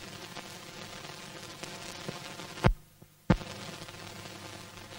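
Hiss and crackle of an old optical film soundtrack with a faint hum underneath. About two-thirds of the way in, two loud pops come a little over half a second apart, and the sound drops to near silence between them.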